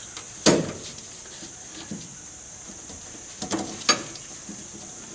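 A few sharp plastic clicks and taps from pushing the safety catches on the fuel-line quick-connect fittings at the fuel filter: one click about half a second in and a small cluster near four seconds.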